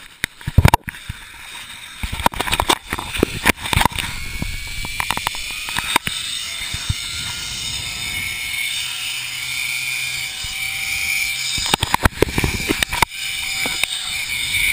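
Zip line trolley pulleys running along a steel cable, a steady high whine that grows louder as the ride picks up speed. Irregular knocks and rumbles of wind on the microphone come in the first few seconds and again about twelve seconds in.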